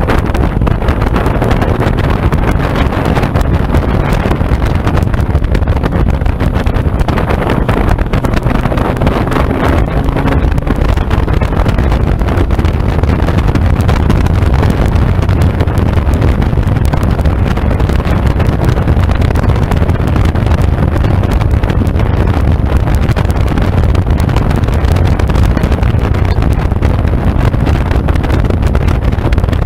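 Motorcycle riding at steady road speed: loud, steady wind rumble on the microphone over the sound of the engine.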